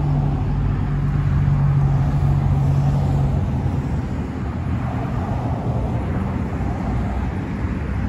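Road traffic: vehicles running on a nearby road, with a steady engine hum that stops about three seconds in.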